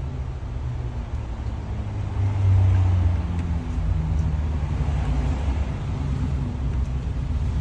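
Low, steady rumble, like a vehicle running or traffic passing, that swells for about a second some two seconds in.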